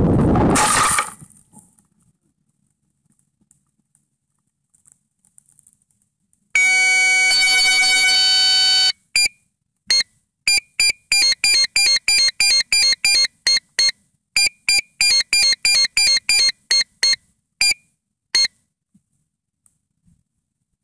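A loud rushing noise that cuts off about a second in as the rocket comes to rest. After a few quiet seconds, the rocket's onboard electronic beeper sounds one long tone of about two seconds, then rows of short, evenly spaced beeps at about three a second.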